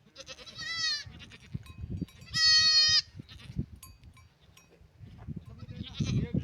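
Sheep bleating: a wavering bleat at the start, then a louder, steadier bleat about two and a half seconds in, over low knocks and rustling.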